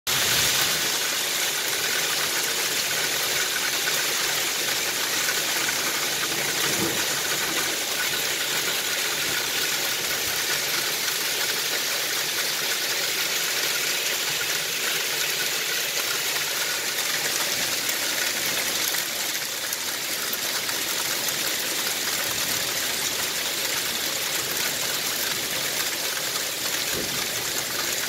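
Heavy rain and hail pouring down in a severe storm, a steady dense hiss that does not let up.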